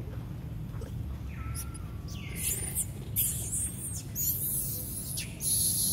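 Young long-tailed macaques squealing: a run of high, shrill shrieks starting about a second and a half in and repeating to the end, over a steady low hum.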